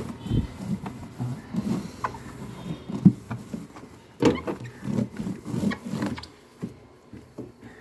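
Damp cloth wiping the inside of a refrigerator: irregular rubbing strokes against the plastic, with a few sharp knocks, the loudest about three seconds in and again just after four.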